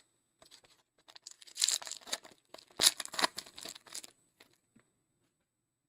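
Wrapper of a sports-card pack being torn open and crinkled, in two short bursts of rustling about a second apart.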